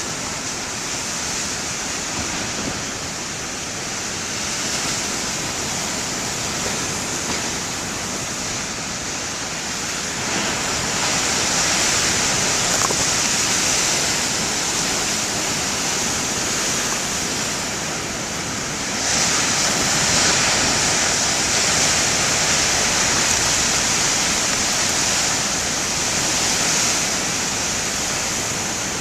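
Huge ocean waves breaking and surf rushing below a cliff: a continuous wash of churning water that grows louder about ten seconds in and again, more suddenly, near twenty seconds, as bigger waves break.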